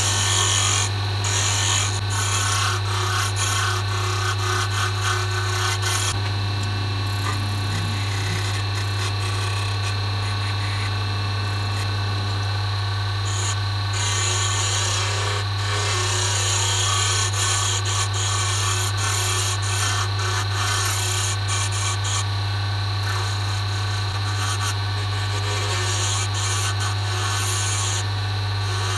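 Wood lathe motor humming steadily while a hand tool scrapes along a spinning cocobolo-and-epoxy resin pen blank, an uneven scraping hiss that swells and fades as the tool moves.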